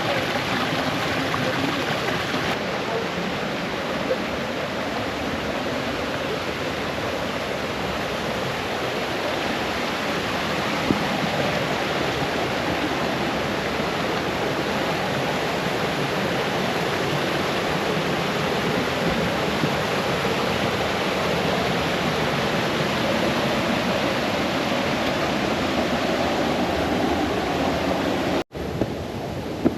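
A brook cascading over stones: a steady rushing and splashing of water. It cuts out for an instant near the end.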